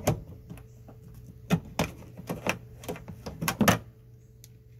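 Short sharp metallic clicks and taps, about seven of them at irregular intervals: a bolt on an extendable magnet pickup tool knocking against the engine's metal parts as it is guided into a thermostat housing bolt hole.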